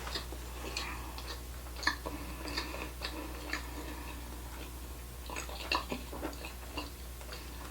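A person chewing a mouthful of sushi with a dab of wasabi, with soft, irregular mouth clicks and smacks about once or twice a second.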